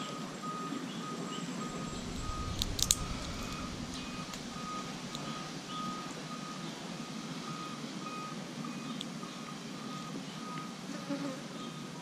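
A steady high beep repeating evenly, about twice a second, with a few sharp clicks about three seconds in.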